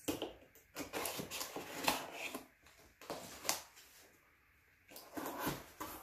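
Small blade slitting the tape on a cardboard box, then the box lid being pulled open: a run of short scrapes, clicks and cardboard rustling, pausing briefly before the lid is worked free.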